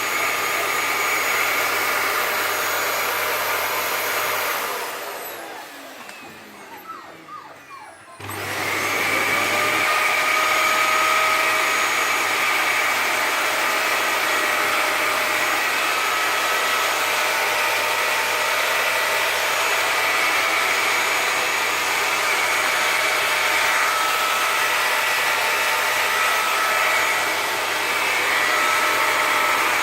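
Vacuum cleaner running steadily; about four seconds in it is switched off and the motor winds down with a falling whine, then about eight seconds in it is switched back on and runs steadily again.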